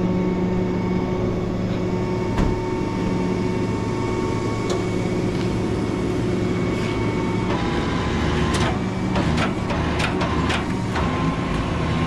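Rollback tow truck's engine running with its hydraulic pump engaged, a steady drone with a whine over it, as the tilted deck and winch are worked. The tone shifts about seven and a half seconds in, and a string of light clicks and clanks follows.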